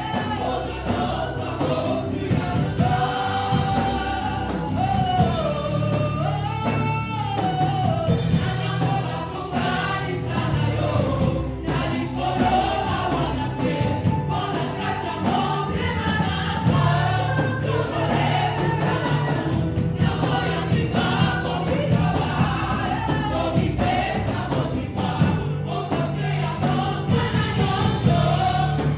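Gospel worship music: a choir of voices singing a melody over a band with steady bass and percussion.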